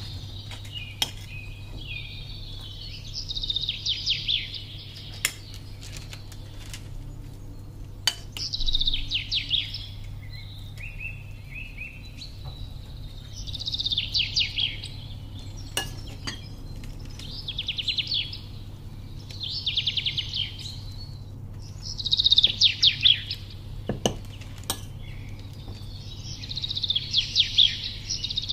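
A small songbird singing in short, rapid trilled phrases, one every two seconds or so. A metal spoon clicks against a bowl now and then, over a steady low hum.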